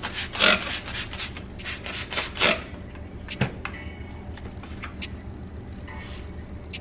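Two short hissing squirts from a trigger spray bottle of all-purpose cleaner, about two seconds apart, followed by a single sharp knock and light rubbing.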